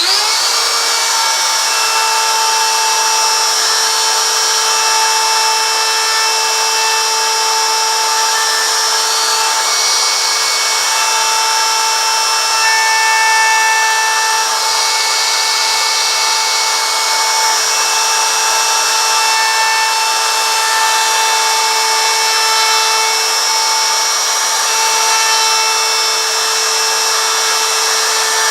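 Electric router with a V-groove bit spinning up, then running steadily with a high whine as it trims the edges of a carved wooden letter.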